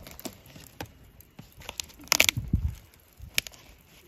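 Burning charcoal in a small camp grill crackling, with scattered short pops and clicks. About two seconds in there is a brief louder noise with a low thud just after it.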